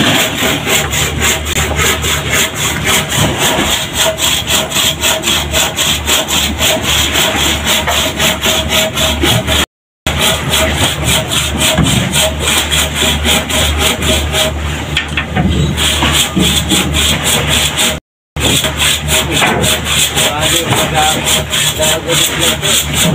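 Wooden deck planks being sawn by hand: a fast, even run of rasping saw strokes, several a second, over the steady hum of an engine running. The sound drops out briefly twice.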